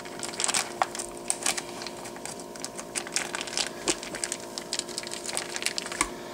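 Clear plastic vacuum-pack sleeve crinkling and crackling in the hands as a small steak is pulled out of it, in irregular short crackles.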